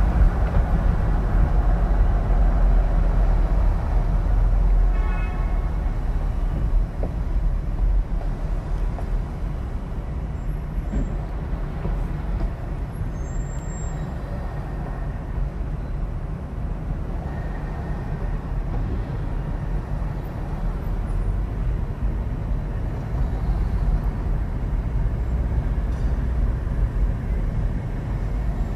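Steady low rumble of a car driving slowly in city traffic, heard from inside the cabin: engine and tyre noise. A brief pitched tone sounds about five seconds in.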